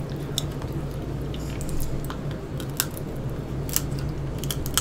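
Close-miked eating of boiled crab and other shellfish: wet chewing and sucking of meat, with scattered sharp clicks and cracks of shell about once a second. A steady low hum runs underneath.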